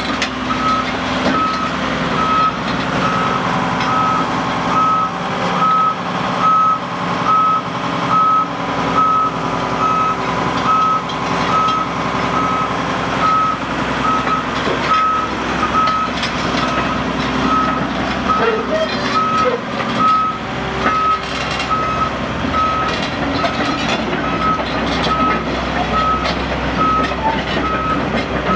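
Volvo EC210BLC crawler excavator's diesel engine running steadily, with a back-up alarm beeping over it at an even pace, about one and a half beeps a second.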